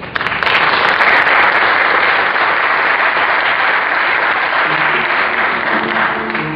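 Audience applauding, with instrumental music starting to play beneath it near the end.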